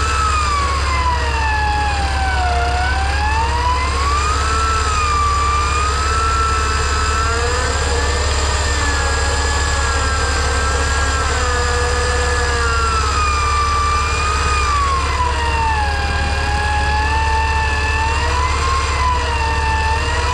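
Electric winch motor whining under load as it slowly pulls a vehicle, its pitch sagging and rising as the pull eases and tightens, over a steady low hum. It is a light traction-assist pull of about 2,000 pounds.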